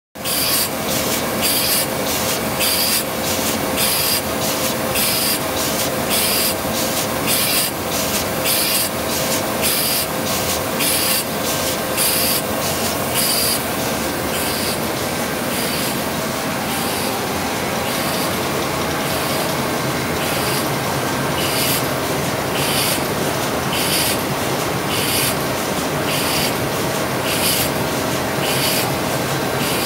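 Tymi Octans-126X OPP laminating machine running, with a steady mechanical hum and a sharp hissing swish repeating evenly about twice a second as it cuts and delivers laminated sheets.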